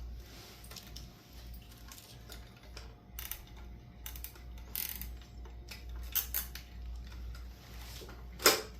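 Zip ties and the plastic horn mount being handled and pulled tight: scattered light clicks and rattles, with one sharp clack near the end.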